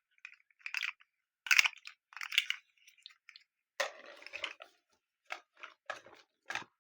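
A snail fidget toy squeezed and handled: an irregular run of short crackly, squishing noises, with a longer one about four seconds in.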